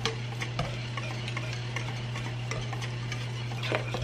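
Wire whisk stirring vanilla pudding as it thickens in a stainless steel pot, with light irregular clicks of the whisk against the metal. A steady low hum runs underneath.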